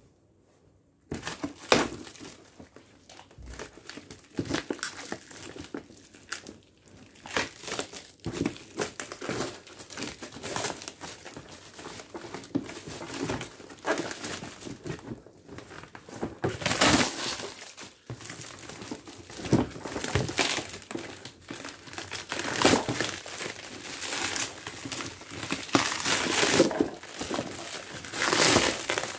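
Black plastic wrapping being torn and crumpled off a cardboard box: loud, uneven crinkling and tearing that starts about a second in.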